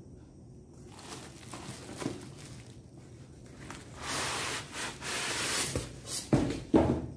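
Cardboard box and styrofoam packing scraping and rustling as a boxed induction cooktop is slid out, then two thumps near the end as it is set down on the floor.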